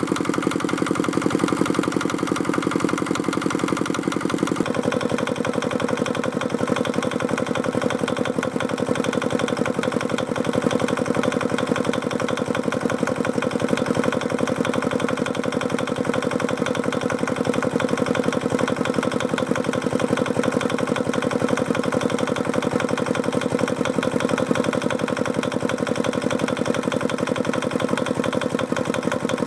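Old Fuji Heavy Industries Robin single-cylinder horizontal diesel engine running steadily, in good running order. Its tone shifts once about five seconds in, then holds steady.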